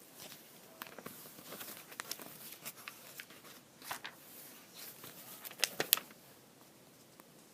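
Irregular rustling and handling noises with scattered sharp clicks, two of them louder close together a little before six seconds in.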